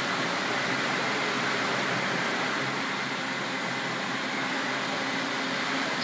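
Steady hum and hiss of a factory workshop's machinery and ventilation, even throughout, with a faint high whine.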